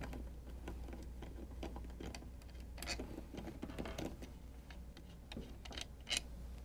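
Faint clicking and scraping of a hand driver turning out the screws of a Fleck 5800 control valve's plastic top plate, with a few sharper clicks about three, four and six seconds in.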